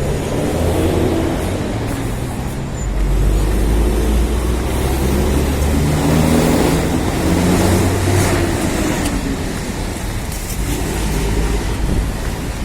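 City road traffic: motor vehicles running past with a steady low rumble, engine notes rising and falling as they pass.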